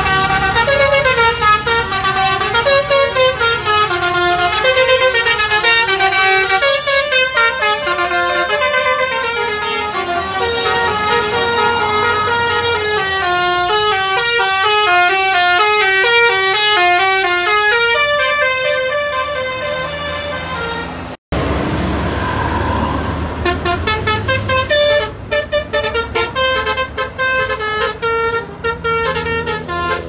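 Tour-bus 'telolet basuri' multi-tone horn playing a quick tune, its notes stepping up and down several times a second. After a brief cutout about two-thirds of the way through, another bus's telolet horn plays over engine and road noise.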